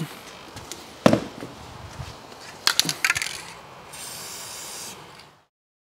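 Sharp metal clicks and clinks of tools against the steel strut and hub: one about a second in, then a quick cluster near three seconds. This is followed by about a second of steady hiss from an aerosol maintenance spray on the cleaned bolt thread.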